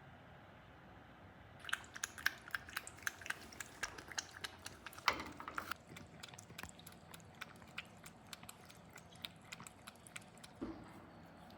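A cat crunching dry food: a rapid run of sharp crunches, several a second, loudest in the first few seconds and thinning out toward the end.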